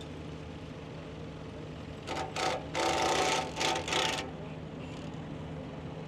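Tractor engine running steadily. About two seconds in, a loud burst of hissing, rushing noise lasts about two seconds in several pulses.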